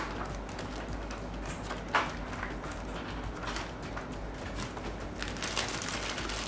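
Crinkling and rustling of a clear plastic bag being handled, starting about five seconds in. Before it there are quieter paper-handling sounds and a single short tap about two seconds in, over a low steady hum.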